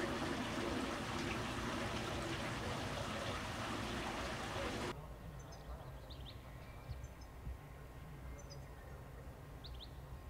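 Water splashing and trickling steadily from a stone fountain, cutting off abruptly about five seconds in. After that, quiet open-air ambience with a few short, high bird chirps.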